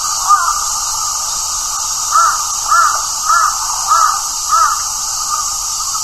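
Crow cawing: a single caw, then a run of five short, arched caws about half a second apart, over a steady hiss.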